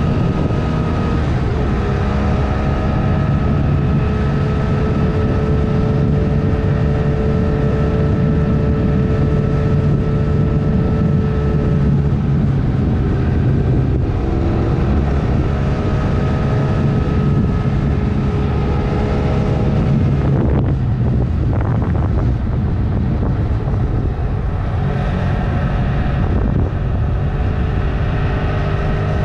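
Honda CMX500 Rebel's parallel-twin engine running at a steady cruise, with wind rushing over the microphone. The engine note drifts slowly up and down, with a brief break about twenty seconds in.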